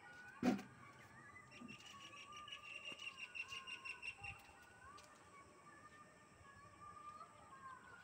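Birds chirping and calling, with a quick run of high chirps from about two to four seconds in and softer wavering calls throughout. A single sharp knock comes about half a second in.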